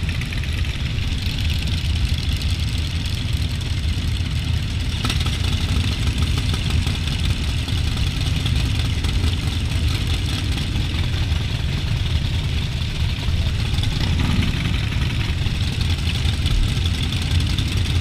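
Motorcycle engines idling in a large group of bikes, a steady low rumble with no clear revs or stops.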